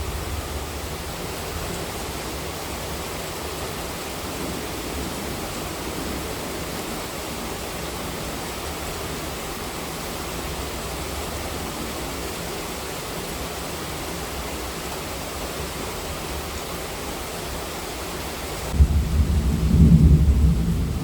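Steady heavy monsoon rain. About two seconds before the end, a loud low rumble of thunder breaks in suddenly.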